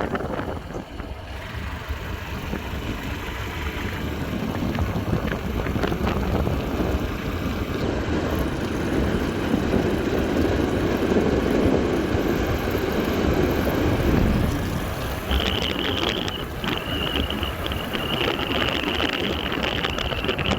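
Wind buffeting the microphone over the engine and road noise of a moving motorbike. About three quarters of the way through, a steady high-pitched whine comes in and holds.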